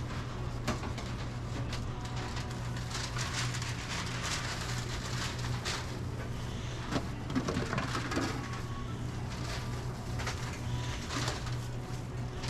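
Busy restaurant kitchen background: a steady low hum of running kitchen equipment with scattered clicks and clatter of utensils and containers.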